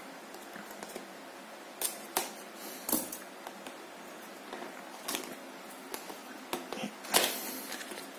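Small cardboard product box being handled and opened by hand: scattered clicks, taps and scrapes of fingers and paper against the card, the loudest a short rasp about seven seconds in.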